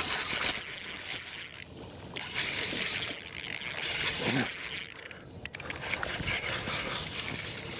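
Fishing reel giving a steady high-pitched whir in two long stretches, broken by a short pause about two seconds in, as a freshly hooked bass is fought and reeled in.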